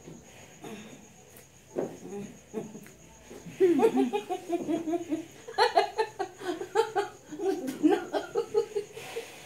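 A person laughing in a long run of short, quick bursts that starts after about three and a half quieter seconds.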